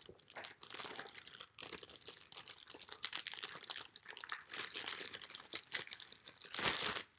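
Packaging crinkling and rustling as it is handled and opened, a dense run of small crackles with a louder burst near the end.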